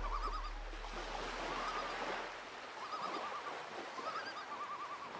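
Faint animal calls: four or five short bouts of quick, wavering, trill-like notes over a soft steady background hiss.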